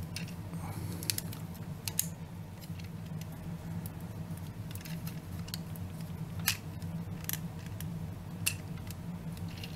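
Plastic joints and parts of a TFC Toys Heavy Labor transforming figure clicking and snapping as they are folded and fitted by hand: irregular sharp clicks, the loudest about six and a half seconds in, over a steady low hum.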